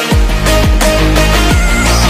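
Electronic dance music with a heavy, repeating bass beat.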